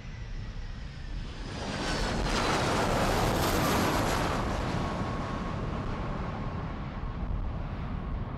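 Boeing 737 jet airliner landing and rolling out past at close range: the engine roar swells to its loudest about three to four seconds in, with a falling whine, then eases as the jet moves away.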